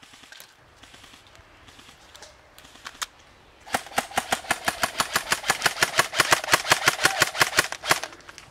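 Airsoft electric rifle (M4-style AEG) firing a long full-auto burst of about four seconds, about eight shots a second, with the gearbox motor whining under the rapid clicks. A single sharp click comes just before the burst.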